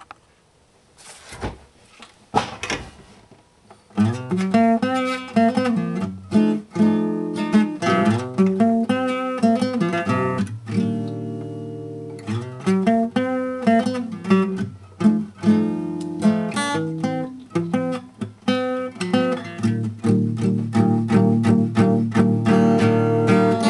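Acoustic guitar played solo, picked notes and chords that begin about four seconds in and grow into fuller strumming near the end. Before that, a couple of knocks of the camera being handled.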